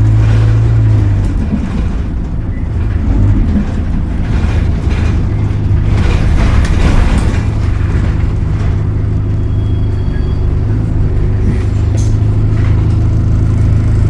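Diesel engine of a city bus heard from on board. A steady engine hum fades about a second in, giving way to a stretch of rattles and road noise, then the hum steadies again in the second half.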